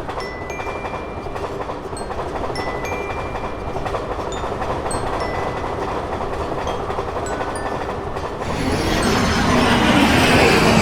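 Train running along the rails with a steady rumble and clatter, and light bell-like notes over it. It swells much louder about eight seconds in, as if the train is passing close by.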